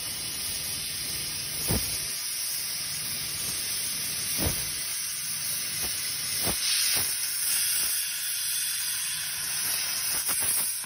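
Hypertherm Powermax 125 plasma torch cutting metal plate on a CNC table: a steady, loud, high hiss from the arc, broken by a few sharp knocks. The hiss stops suddenly at the very end.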